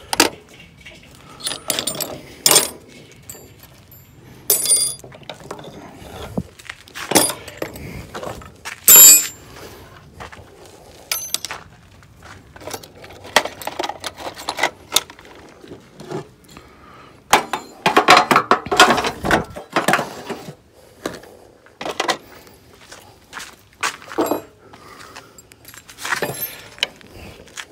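Irregular metal clinks, knocks and taps from hand tools and parts on a radial arm saw's metal frame as it is worked apart. There is a sharp knock about nine seconds in and a burst of rattling clatter a little past halfway.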